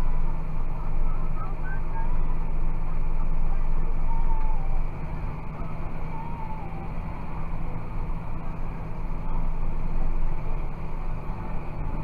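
John Deere 6190R tractor's six-cylinder diesel running steadily under load while pulling a mounted plough, heard from inside the cab. The overall level drops a little about five seconds in.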